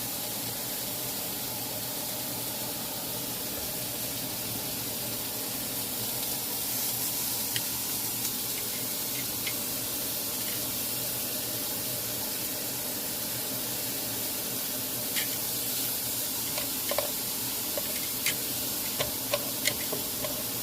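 Raw ground-beef burger patties sizzling on a hot grill: a steady hiss, with scattered pops and crackles from about halfway in, more frequent near the end.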